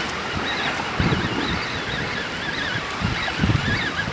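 Sea waves washing against shoreline rocks, with wind gusting on the microphone about a second in and again near the end.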